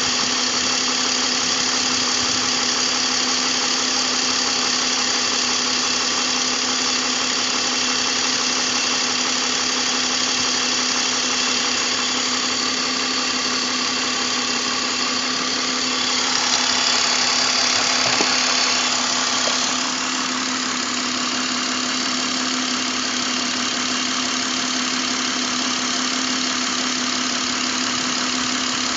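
BMW M54 straight-six engine idling steadily, with a constant hum and hiss. About two-thirds of the way through, the sound grows a little louder and hissier for about four seconds, then settles slightly quieter.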